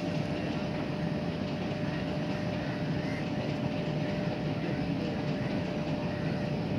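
Passenger train crossing a river bridge, giving a steady, even rumble with a thin steady tone running through it, along with the engine of a small motorboat on the water.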